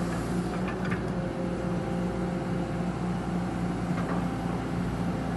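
Kobelco SK200 hydraulic excavator's diesel engine running steadily, with a low hum that pulses evenly several times a second and a few faint clicks about a second in and near four seconds in.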